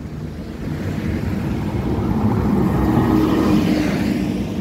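Articulated Caio Millennium BRT bus approaching and passing close by, its running noise and a steady hum growing louder to a peak about three seconds in.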